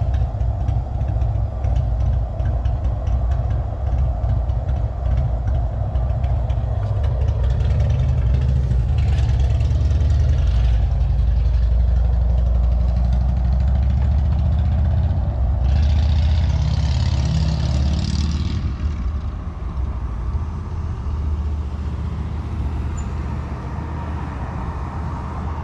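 Steady low rumble of an idling vehicle engine, with a brief hiss about nine seconds in and a stronger hiss about sixteen seconds in; the rumble eases toward the end.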